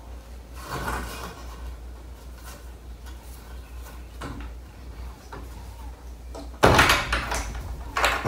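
A door bumping and rattling loudly twice near the end, as a knotted line held against it is pulled tight, over quieter handling sounds and a steady low hum.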